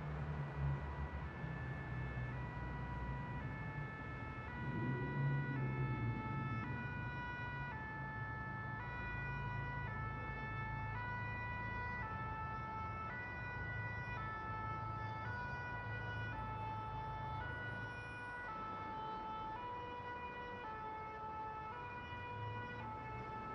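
Two-tone emergency-vehicle siren, alternating steadily between a high and a low note, over a low rumble of traffic or ambient noise. It starts about a second in.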